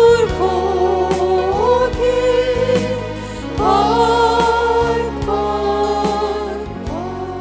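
Christian worship song: singing voices holding and sliding between long notes over instrumental accompaniment with steady bass notes, fading out near the end.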